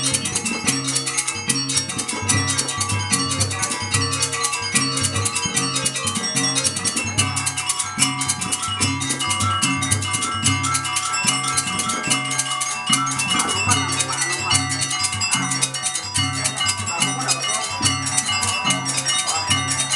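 Gamelan ensemble playing: dense ringing metal percussion strokes over a steady, repeating low drum pulse.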